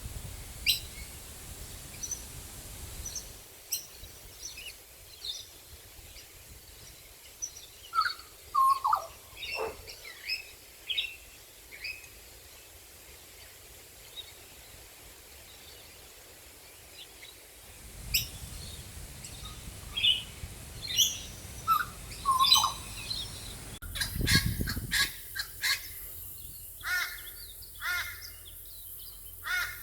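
Assorted wild birds calling with short chirps and whistles, including a few falling whistled notes about eight to ten seconds in and a quick run of repeated calls near the end.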